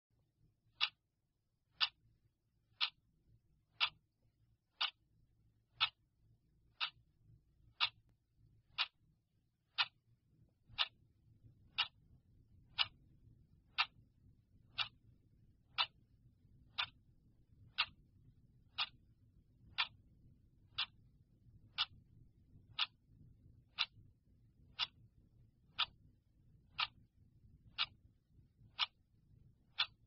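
Clock ticking steadily, one sharp tick a second, marking off a countdown timer.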